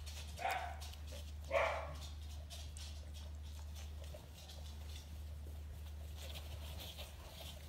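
Corgi puppy giving two short yipping barks, about half a second and a second and a half in, then only faint small clicks over a low steady hum.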